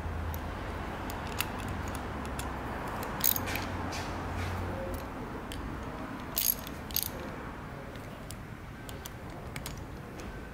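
Click-type torque wrench with a hex bit tightening the backing-plate screws on an oil pump. Light ratcheting ticks, with sharp clicks about three seconds in and twice around six to seven seconds in, as the wrench breaks over at its set torque. A steady low hum runs underneath.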